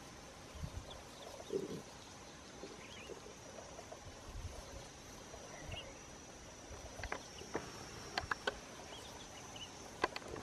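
Outdoor natural ambience: a steady high insect drone with a few faint bird chirps. There is a soft thump about a second and a half in, and scattered light clicks and rustles in the second half.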